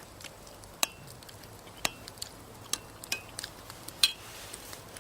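Cutlery clinking and scraping against a dish while eating: about eight irregular sharp clinks, some ringing briefly, the loudest about four seconds in.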